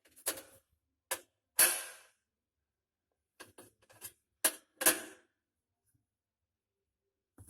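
A magnet clacking onto the metal wall of a Samsung washing machine drum and being pulled off again, about eight sharp clicks, some with a short ring. The magnet sticks well all over, which the owner takes to mean the drum is iron and not the stainless steel that was claimed.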